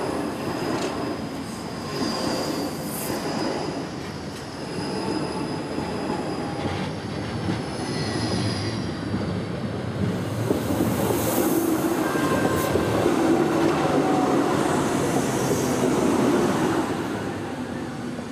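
Stuttgart Stadtbahn DT8 light rail train running past on steel rails, rumbling with thin, high wheel squeal. The rail rumble and squeal grow louder again from about ten seconds in.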